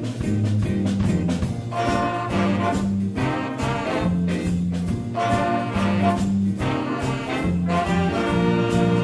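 Middle school jazz band playing live: horns carrying the tune over a drum kit keeping a steady beat.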